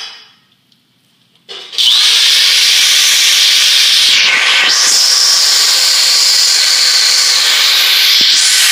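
Power drill boring a hole into a hard wooden board, starting about two seconds in and running loud and steady, with a brief dip a little over four seconds in. The board is very hard and the drill is having a hard time getting through it.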